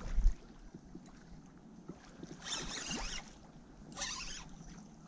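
Water splashing and sloshing in two short bursts, the second about a second and a half after the first, with a gust of wind buffeting the microphone at the start.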